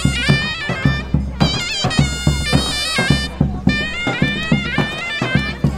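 Folk-style music: a shrill reed wind instrument plays a wavering, ornamented melody over a steady drum beat, with one long held note about halfway through.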